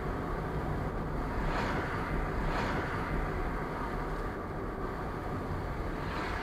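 Car driving, its engine and tyre noise heard steadily from inside the cabin, with brief louder swells about one and a half and two and a half seconds in.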